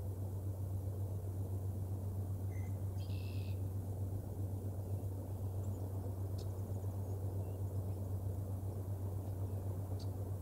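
Steady low hum and rumbling background noise from an outdoor nest camera's microphone, with a few faint, brief bird chirps, the clearest about three seconds in.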